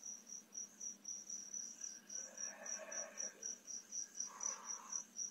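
Crickets chirping in a steady, rapid high-pitched pulse, about four pulses a second. A faint distant sound rises briefly under them in the middle and again about four seconds in.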